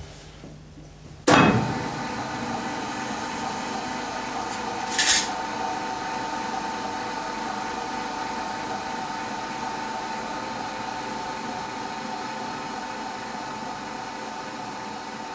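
Electric drive of an intaglio etching press starting with a clunk about a second in, then running with a steady whine as the bed carries the inked plate and paper under the felt-covered roller; a short hiss about five seconds in.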